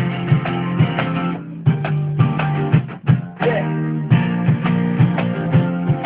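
Live rock band playing an instrumental passage with strummed guitars and drums on a steady beat; the band drops out briefly twice, about one and a half and three seconds in.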